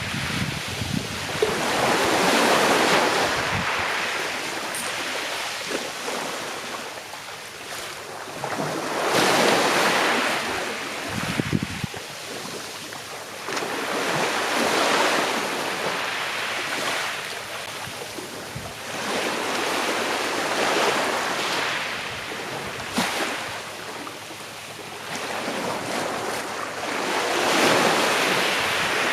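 Sea waves washing onto a shore, each one swelling and ebbing in turn, about every five or six seconds.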